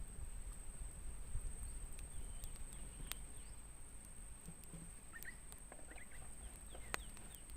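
Forest ambience: a steady high-pitched insect drone, with short bird chirps and scattered sharp clicks.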